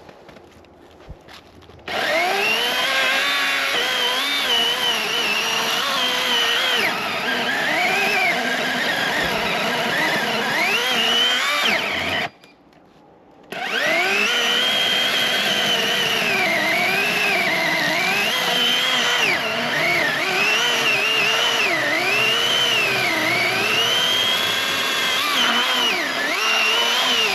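Master Force 80-volt cordless electric chainsaw cutting wood: the motor's whine sags in pitch as the chain bites and recovers as it eases. It runs in two spells, cutting out for about a second near the middle.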